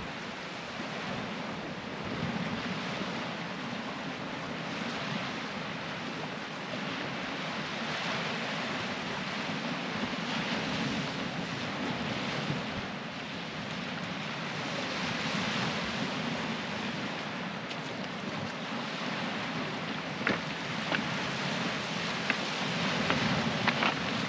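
Small waves breaking and washing over a shingle beach, with wind buffeting the microphone. In the last few seconds come a few sharp clicks, pebbles crunching underfoot.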